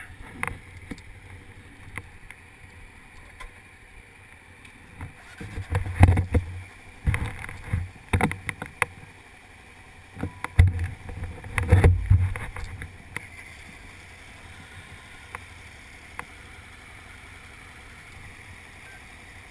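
Motorcycle running at low speed through a parking lot, heard from the bike's own camera, with several loud, irregular rumbling gusts of wind noise or buffeting on the microphone in the middle, then steadier running.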